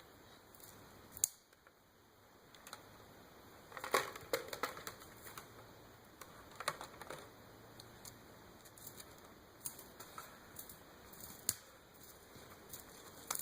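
Scattered faint snaps and crackles of twigs and brush, coming irregularly with a brief cluster about four seconds in.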